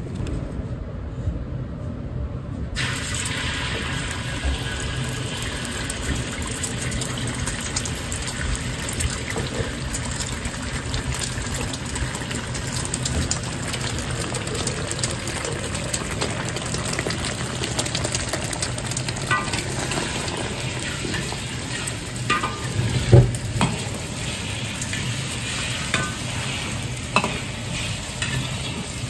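Beaten egg sizzling in hot oil in a large iron wok over a gas wok burner, the sizzle starting about three seconds in, with a steady low hum beneath. In the last third a metal ladle clinks and scrapes against the wok as it stirs the egg, with one louder knock.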